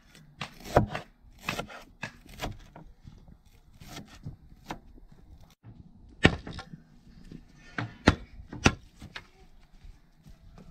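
A large knife chopping greens on a wooden cutting board, several strokes. Then sticks are broken for firewood, with three loud sharp cracks of wood snapping between about six and nine seconds in.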